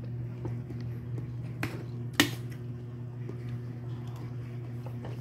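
Small shellfish being eaten by hand: a few sharp clicks of shells against each other or the plate, the loudest about two seconds in, with smaller ticks, over a steady low hum.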